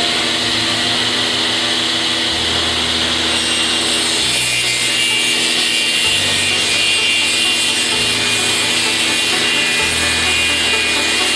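CNC router's 9 kW HSD spindle cutting MDF: a steady high whine over the continuous hiss of the bit chewing through the board.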